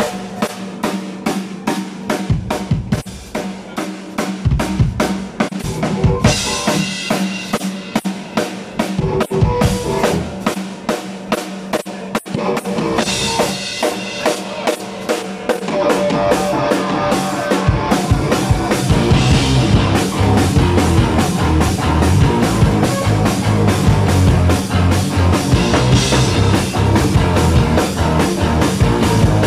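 A rock band playing live, with the drum kit beating a steady rhythm under electric guitar. About halfway through, the low end fills in and the band plays louder.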